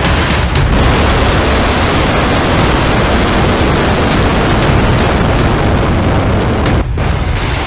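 Hwasong-18 solid-fuel ICBM's rocket motor at liftoff: a loud, steady, deep roar of exhaust noise. It breaks off for a moment near the end.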